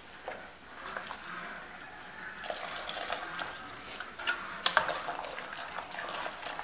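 Hot soy milk scooped with a metal ladle and poured into a steel pot, with a few sharp clinks of the ladle about four to five seconds in.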